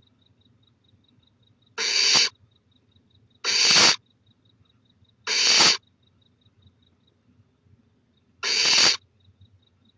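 Barn owl owlet making its snoring call: four short hisses, each about half a second long, spaced irregularly a second and a half to three seconds apart. This is the nestling's food-begging call.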